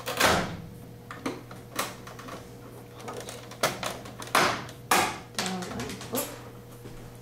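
Plastic clicks and snaps from the rear panel of an Epson R2000 inkjet printer as hands work its tabs loose, about eight sharp irregular clicks and knocks.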